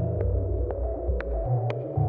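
Electronic music played on Moog analog synthesizers: a deep pulsing bass note that steps up in pitch about one and a half seconds in, under a sustained drone, with a sharp tick about twice a second.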